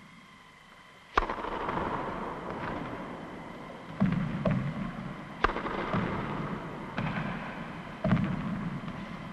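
Tennis racket strings hitting balls on serves: a series of sharp, echoing cracks, the loudest about a second in and again about five and a half seconds in, with weaker hits between. The hits overlap as if from several serves at once.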